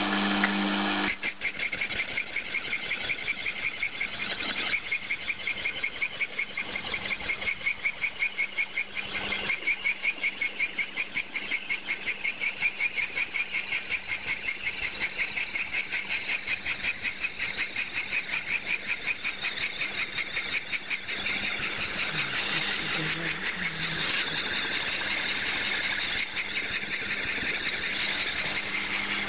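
A milling machine's slitting saw cutting a slot through a cast-iron mandrel. It bites in about a second in, then cuts steadily with a regular pulse about three times a second.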